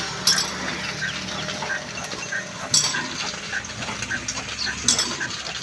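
Super Nafees 22 stationary diesel engine being turned over by a hand crank: a short squeak about twice a second as the crank goes round, with a sharp metal clank every two seconds or so. The engine has not yet started.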